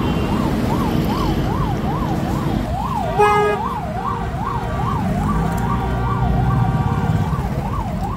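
An emergency vehicle's electronic siren wailing, rising and falling quickly a few times a second, over a low rumble of traffic. A short, loud horn blast comes about three seconds in.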